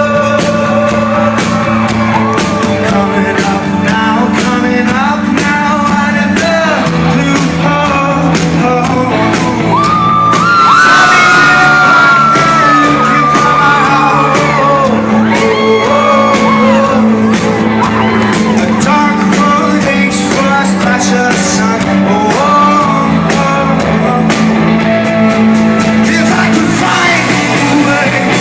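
A rock band playing live with a male lead vocal, loud and recorded in a large hall, the crowd shouting along. The music swells a little about ten seconds in under a long, high held vocal line.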